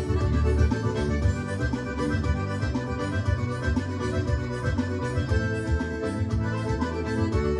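Forró accordion (sanfona) playing an instrumental solo over the band's steady bass and percussion, with no singing.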